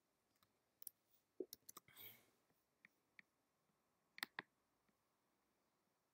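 Faint clicks of a computer's keys and pointer button, scattered and sparse, with the loudest a quick pair about four seconds in.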